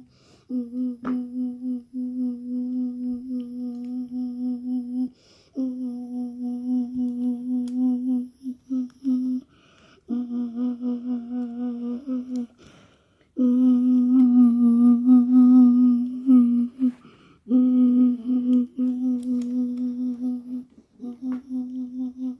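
A person humming one steady low note that pulses about four times a second, like an idling diesel engine, to voice a stationary toy train. The humming comes in stretches of a few seconds broken by short pauses for breath, and it gets louder in the middle.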